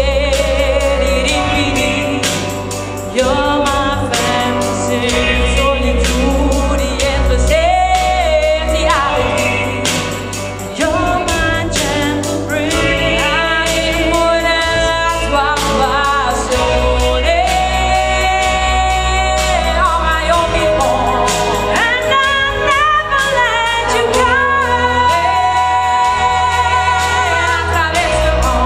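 A song with singing over a steady beat and bass.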